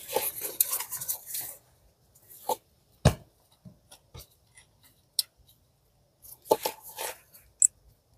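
Handling noises of a bolt being worked out by hand from the ignition coil bracket in a car's engine bay. There is a scraping rustle at the start, a few light clicks, one sharper knock about three seconds in, and another short rustle near the end.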